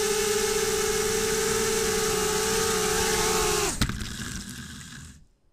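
Brushless motors and propellers of a 250-size FPV racing quadcopter whining at a steady pitch, heard from its onboard camera. About four seconds in there is a sharp knock as it comes down on the concrete floor, the motors cut out, and the sound fades away.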